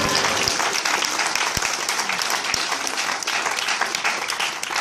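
Audience applauding, a dense patter of many hands clapping at a steady level.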